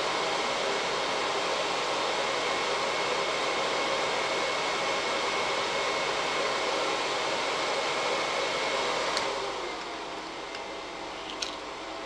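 Homemade 300-watt heat gun's fan blowing a steady stream of air with a faint high whine. About nine seconds in there is a click, the whine stops and the airflow drops to a quieter steady hiss, and a second light click follows near the end.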